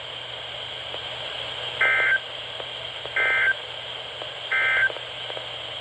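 Emergency Alert System end-of-message code on NOAA Weather Radio: three short bursts of two-tone digital data screech, about a second and a third apart, over a steady radio hiss. This signals the end of the tornado warning message.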